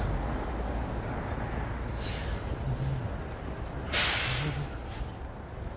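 Road traffic with a dump truck running past as a steady low rumble. A faint hiss comes about two seconds in, and a loud, short air-brake hiss about four seconds in that fades within a second.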